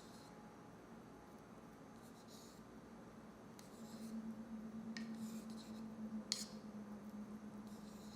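Faint scrapes of a utensil against a dish, with one sharp clink about six seconds in, over a low steady hum that starts about four seconds in.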